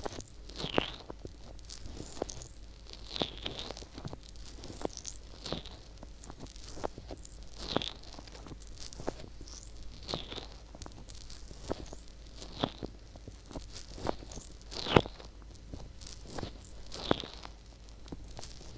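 Fingertips rubbing and pressing the silicone ear of a binaural microphone, heard close up as crackly rustling with sharp crunchy pops every second or two; the loudest pop comes about three-quarters of the way through.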